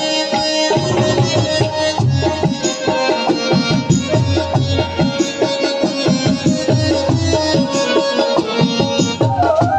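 Instrumental background music with a steady drum beat under sustained melodic tones.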